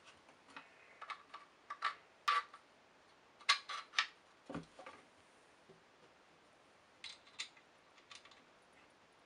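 Scattered small clicks and taps of long M5 steel bolts being slid through the holes of a 3D-printed plastic alternator case and knocking against it, loudest in a cluster a few seconds in.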